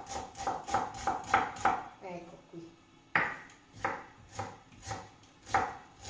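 Kitchen knife chopping onion on a wooden cutting board: quick, even cuts about four a second, a short pause about two seconds in, then slower single cuts about one and a half a second.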